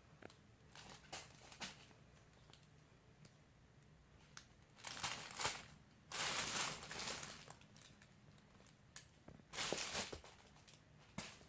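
A crinkly fabric cat tunnel rustling and crinkling as a cat plays in it, with small scratches and clicks and three longer bursts of crinkling, the loudest about six seconds in.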